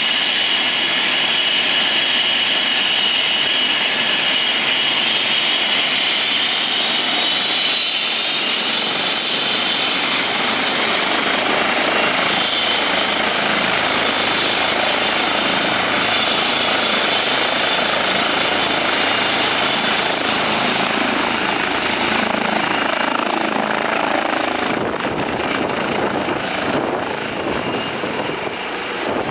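Airbus H135 twin-turbine helicopter running on the pad with its rotor turning: a steady high turbine whine over the rotor's noise. It lifts off into a low hover near the end.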